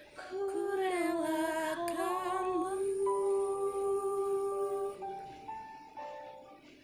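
A female voice sings one long wordless note, wavering and dipping at first, then held steady with vibrato, over a soft instrumental accompaniment. The voice stops about five seconds in, leaving a few accompaniment notes.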